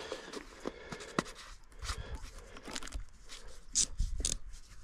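Scattered light clicks, taps and rustling of hands working on an outboard engine's plastic fuel filter and hose fittings, with a louder rustle about four seconds in.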